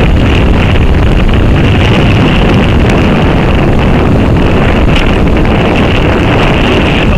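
Strong wind buffeting the camera microphone: a loud, steady rumbling noise with no break.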